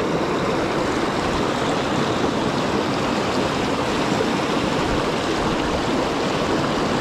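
Steady rushing of a fast mountain creek as it runs and splashes over rocks in white-water riffles.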